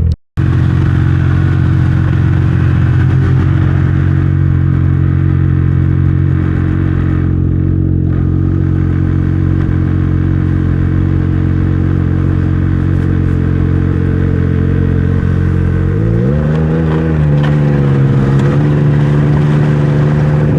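Snowmobile engine running at a steady pitch under way, with a momentary cut-out just after the start; about sixteen seconds in it revs up and its pitch rises and falls with the throttle.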